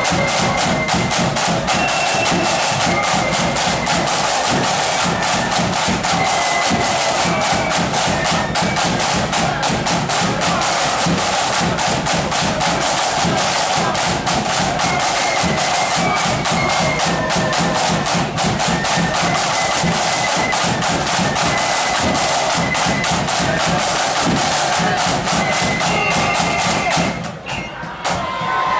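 Marching flute band playing: flutes carry a melody over rapid side-drum rolls and beats. The music stops near the end.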